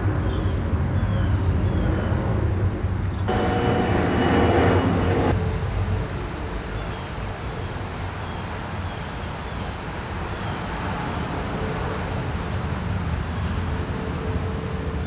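Outdoor night ambience: a steady low rumble like distant traffic, with faint high chirps about once a second. About three seconds in, a louder hum with several steady tones starts abruptly, then cuts off about two seconds later. A thin high whine sets in near the end.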